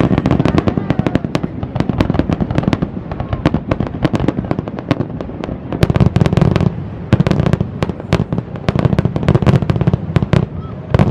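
Fireworks display: many shells and crackling charges bursting in quick, dense succession, a rapid barrage of loud bangs and crackles that keeps up throughout.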